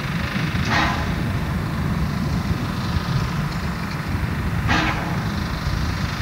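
Stationary Hv3 995 steam locomotive standing in steam, with a steady low rumble and two short hisses of steam, about a second in and near the end.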